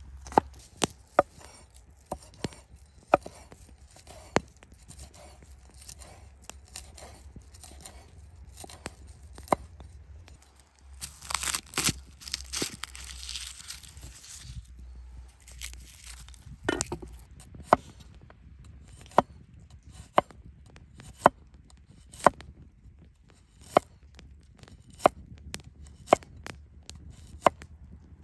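Large cleaver-style knife chopping on a wooden cutting board: sharp single strokes, at about one a second in the second half as garlic cloves are sliced. Around the middle, a few seconds of crackling rustle as a garlic clove is crushed under the blade and its papery skin peeled off.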